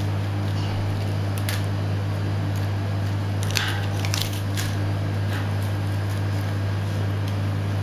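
A few short scrapes and clicks of a boning knife cutting meat away from the bones of a hanging beef forequarter, mostly around the middle, over a steady low hum.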